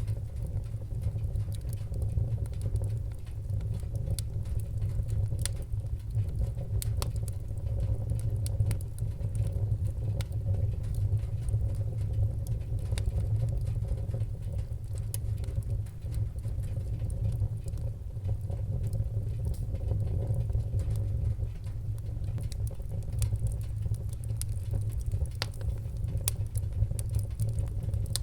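Fire crackling: scattered sharp pops and snaps at irregular moments over a steady low rumble of flames.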